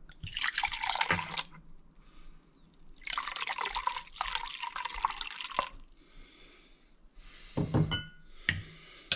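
Red wine pouring from a bottle into a stainless-steel measuring cup in two pours, the second longer. Near the end come a couple of short knocks.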